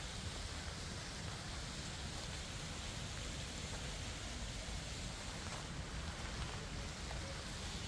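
Steady rush and hiss of fountain water falling and splashing, with a low rumble underneath.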